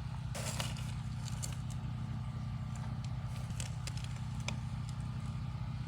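Portable generator's engine running steadily, a low even hum, with a few faint light clicks over it.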